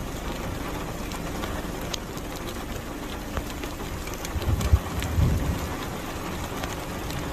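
Heavy rain falling steadily, with floodwater running over the ground and scattered sharp ticks of drops striking. A couple of dull low thumps come about two thirds of the way in.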